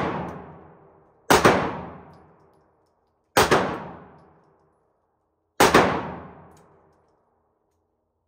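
Three handgun shots about two seconds apart in an indoor shooting range, each a sharp crack followed by a long echoing decay of over a second. It opens on the fading echo of an earlier shot.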